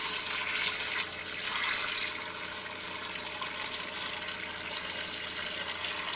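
Water from a sump pump's hose pouring steadily into a washing machine tub as it fills.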